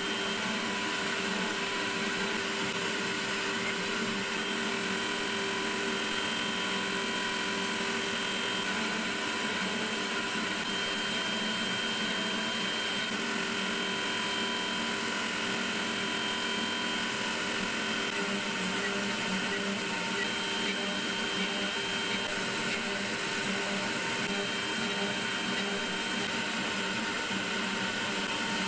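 Desktop CNC spindle running steadily with a high whine while a 1/8-inch single-flute end mill cuts wood on an adaptive roughing toolpath.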